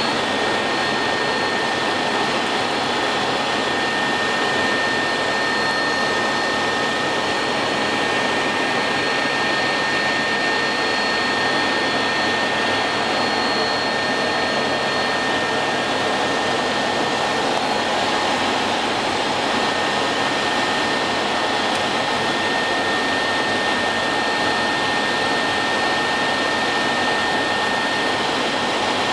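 Helicopter cabin noise in flight: a steady, loud rush of rotor, engine and airflow noise with a constant high whine running through it.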